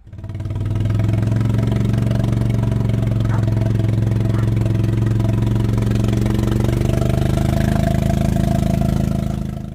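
An engine running steadily at one speed, loud and close, rising in over the first second and cutting off near the end.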